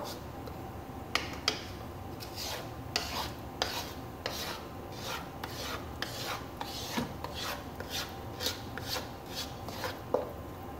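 Flat wooden roux spoon scraping thick flour roux across the bottom of a skillet, in repeated strokes about two or three a second, keeping it from sticking and scorching. A few sharper knocks of the spoon against the pan come near the start and near the end.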